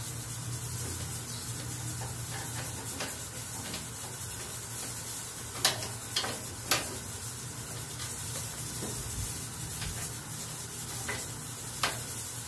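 A few sharp metallic clicks as screws and a hand tool are worked at a tail-light mounting on a sheet-metal tricycle sidecar: three in quick succession about halfway through, one more near the end, over a steady low hum and hiss.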